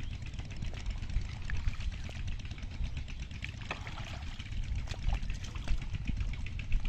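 Shallow muddy water sloshing and trickling as hands and bare feet move in it, with many small splashes and squelches.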